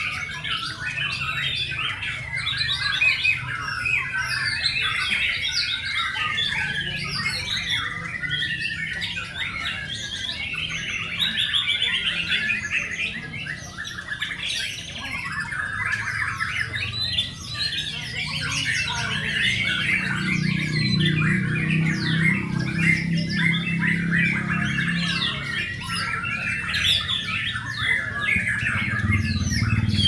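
Many caged white-rumped shamas (murai batu) singing at once, their rapid song phrases overlapping without a break.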